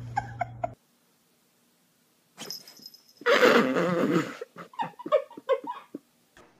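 A cat calls: a harsh, drawn-out cry lasting about a second, followed by a quick run of about six short calls.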